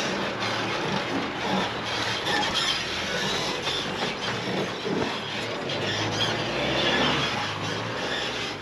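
Four-wheel-drive vehicles crawling through a soft sand track: a steady low engine drone with constant clattering and rattling over the ruts.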